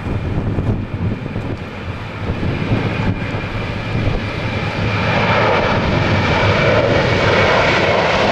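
Airbus A330-303 on its takeoff roll, its two GE CF6-80E1 turbofans at takeoff thrust: a deep rumble with a steady high fan whine, growing louder about five seconds in.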